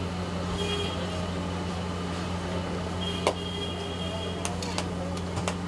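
Jalebis frying in a large wok of hot oil: a faint hiss over a steady low hum, with a few sharp metal clicks and knocks about three seconds in and more near the end.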